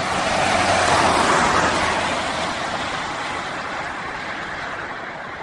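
Motor vehicle driving past on a motorway: tyre and engine noise, loudest about a second in and then slowly fading.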